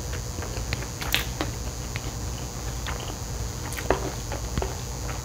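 Close-miked eating sounds of someone chewing Chapaguri noodles: scattered small wet mouth clicks, with a sharper click about a second in and another near four seconds.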